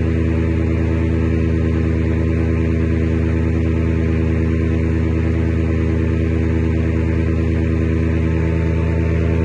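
Paramotor engine and propeller running steadily in flight: a loud, even drone that holds one pitch throughout.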